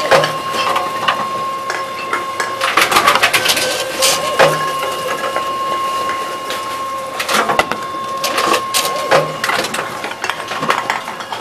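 Tomra T-63 reverse vending machine taking in plastic bottles: repeated bursts of plastic clatter and clicks as bottles are inserted and carried into the machine, over a steady mechanical whine.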